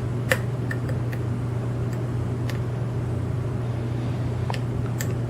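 A lock pick and tension wrench working the pin stack of an all-brass Hurd padlock, giving a handful of faint, irregular small clicks over a steady low hum.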